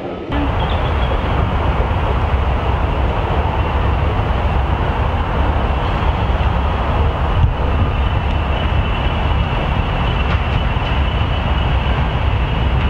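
Class 40 diesel locomotive 345 approaching, its English Electric 16-cylinder engine giving a steady low rumble. Over the rumble is the high, thin whistle of its turbochargers, which grows clearer in the second half.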